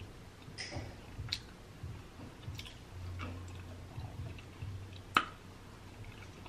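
Faint close-miked mouth sounds of eating: soft chewing, lip smacks and finger-licking, with scattered small clicks and one sharper click about five seconds in.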